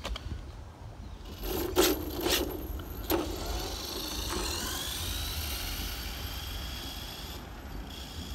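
Brushless electric motor and drivetrain of a Traxxas Slash 2WD RC car, with a few sharp knocks in the first few seconds. About four seconds in, a whine climbs steadily in pitch as the car speeds up, over wind rumble on the microphone.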